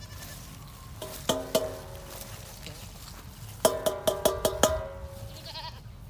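Small metal bell clanking in short jangles: two strikes about a second in, then a quick run of six or seven strikes around four seconds in, each ringing on briefly. A goat bleats faintly near the end.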